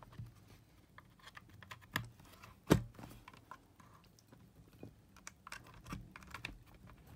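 Irregular light clicks and taps of hands handling the plastic case of a Sony D-311 Discman portable CD player, with one sharper click a little before the middle.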